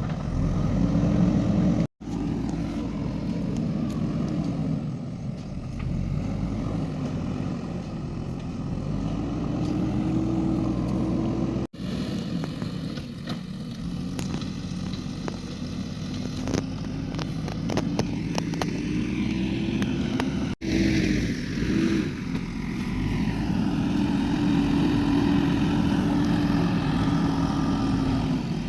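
Excavator's diesel engine running and revving up and down as it works, its note repeatedly rising and falling. The sound is broken by three brief dropouts.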